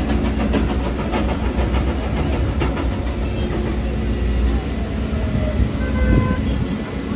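A Volvo EC210DL excavator's diesel engine running with a steady low drone. Over it comes a fast run of knocks, about three a second, through the first few seconds, from the MB crusher bucket working.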